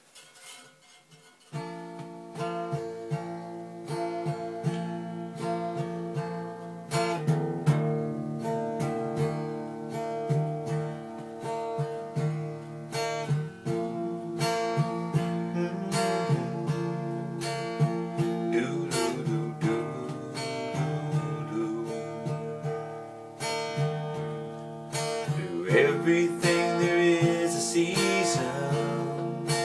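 Acoustic guitar strumming an instrumental introduction to a song, starting about a second and a half in.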